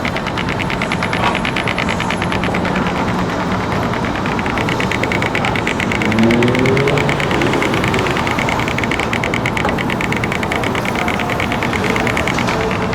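Berlin street traffic: a vehicle engine running under a dense wash of city noise, with a rapid, even rattle. About six seconds in, an engine note rises as a vehicle pulls away.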